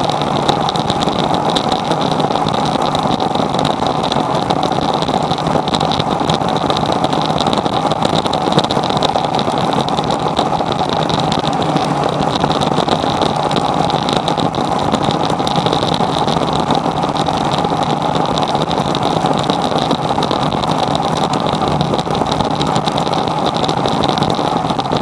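Metal lathe running steadily at speed, its chuck spinning while a small valve part is turned, with a steady whine throughout.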